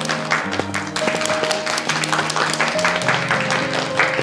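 A group clapping steadily over background music with held notes.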